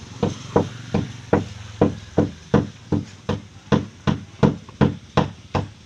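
Hammer striking wood in a steady, rapid series, about two and a half blows a second, each with a short ring.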